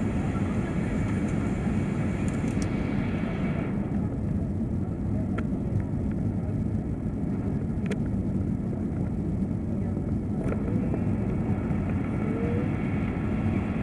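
Steady low rumble of an Airbus A380 cabin on final approach: airflow and engine noise heard from inside. A higher hiss drops away about four seconds in, and a few faint clicks sound.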